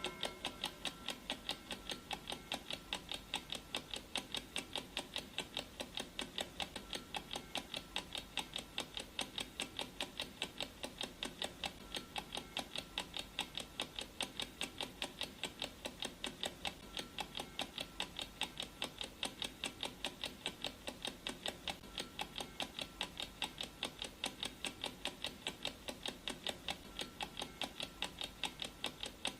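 Clock ticking sound effect of a countdown timer: a steady, evenly spaced run of ticks.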